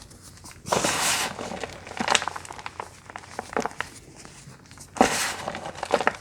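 Close-miked crunching of crunchy bars: two loud crunchy bites, about a second in and near the end, with scattered crackles and clicks of chewing between them.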